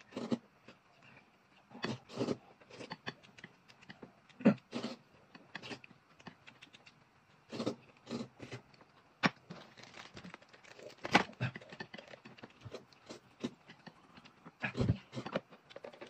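Close eating sounds: wide noodles being slurped and chewed, with sips and swallows of soybean milk from a glass, in short irregular bursts with pauses between.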